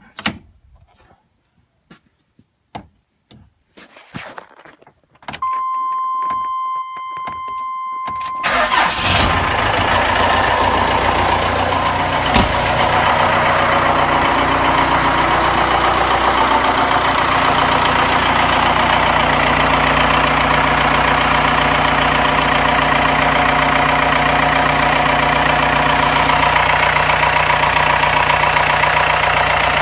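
Freshly rebuilt Cummins 4BT four-cylinder turbodiesel started for the first time: a few faint clicks and a steady high tone for about three seconds, then the engine fires about eight seconds in and runs steadily at idle, with one sharp knock a few seconds after it starts.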